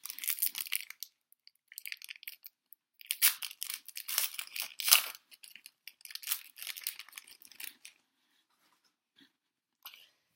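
Foil trading-card pack wrapper being torn open and crinkled in handling, in four bouts of crackling rustle, the loudest about three to five seconds in.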